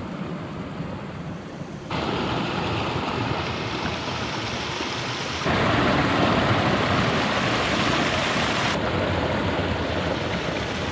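Steady rush of a stream's flowing water, stepping abruptly louder about two seconds in and again about five and a half seconds in, then a little quieter near the end.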